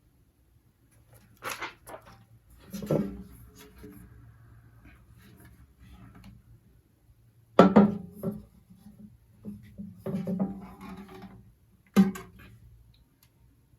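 Handling noise from setting up a flood light: a series of irregular knocks and clatters, with a brief hollow ringing after some of them.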